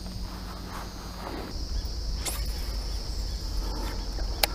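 Outdoor ambience: a steady high insect trill comes in about a second and a half in, over a low rumble, with two short sharp clicks, one near the middle and one near the end.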